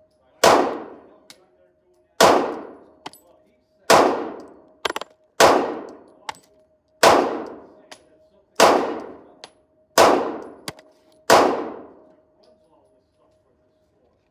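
Handgun shots fired one at a time in slow, steady succession: eight shots about a second and a half apart, each ringing out with an echoing tail.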